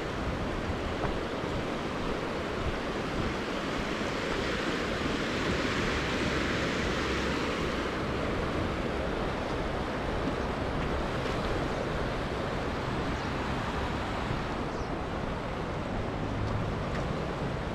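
Steady rushing of a muddy river in flood, the water running fast over rock shelves, with wind buffeting the microphone.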